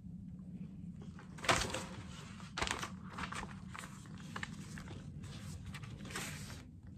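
Handling and movement noise from a person shifting and reaching toward the recording device: a sharp knock about a second and a half in, another about a second later, then scattered rustles and soft knocks over a low steady hum.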